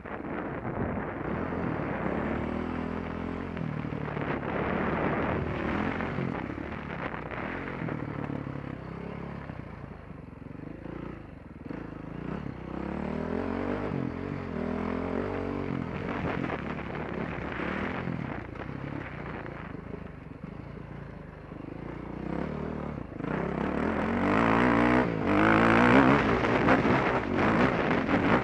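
Dirt bike engine revving up and falling back again and again as the rider works the throttle and gears on a dirt track. It gets louder over the last few seconds as the bike climbs a steep hill.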